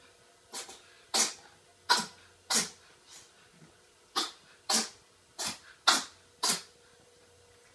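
A cat sneezing over and over: a quick run of about eight sharp sneezes, roughly two a second, with a short break about three seconds in.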